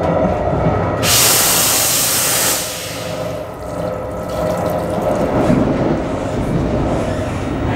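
Water running from a Dyson sensor tap onto a hand in a train restroom sink. About a second in there is a loud rushing hiss that lasts about a second and a half, then a quieter run of water, with the moving train's rumble underneath.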